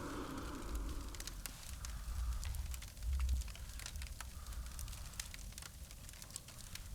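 Campfire crackling, with irregular sharp pops and snaps of burning wood over a low rumble.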